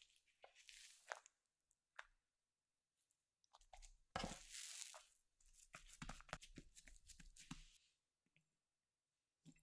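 Stollen dough lifted and folded by hand over dried fruit and nuts on a marble counter. The handling sounds are faint at first and louder from about four to eight seconds in.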